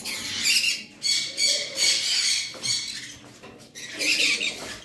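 Small caged parrots chattering and screeching in high-pitched calls that come in several spells.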